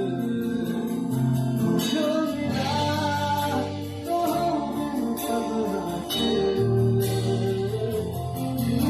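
A song sung over instrumental accompaniment with guitar and a steady beat.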